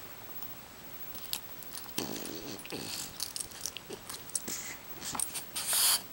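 A French bulldog and a kitten play-fighting: a short dog vocal noise falling in pitch about two seconds in, among scattered mouthing clicks and rustling on a blanket, with a loud rush of noise near the end.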